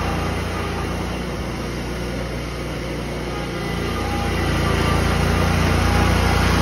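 Engine of a tracked remote-control slope mower running steadily as the machine drives. It grows quieter as the mower moves away, then louder as it comes back over the last couple of seconds.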